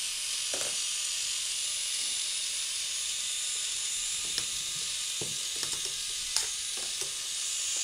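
A ball rolling and dropping through a K'nex ball machine's plastic track, heard as a handful of scattered clicks and taps over a steady hiss.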